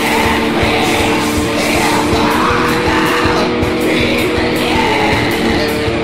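Black metal: distorted guitars holding chords that change every few seconds, over fast, dense drumming, with a harsh vocal.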